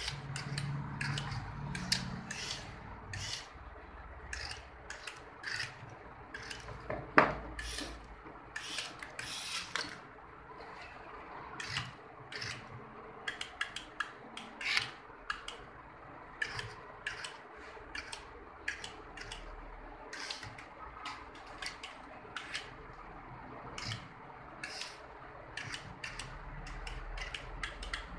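Small brushed DC motors of a homemade PVC-pipe robotic arm running in short, irregular spurts, with clicking and rattling from its gears and joints as it moves.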